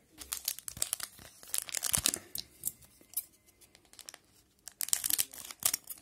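Foil wrapper of a 2011-12 Pinnacle hockey card pack being torn open and crinkled: sharp crackling in several short spells.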